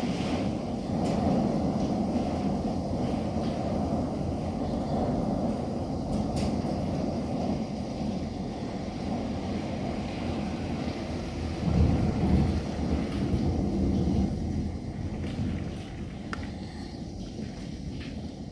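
Storm wind buffeting the microphone as a steady low rumble, with a stronger gust about twelve seconds in.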